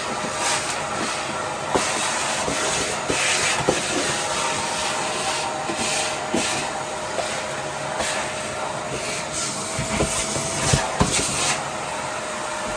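Commercial vacuum cleaner running steadily, with a constant motor whine, repeated short surges of hiss and scattered small clicks as it sucks things up.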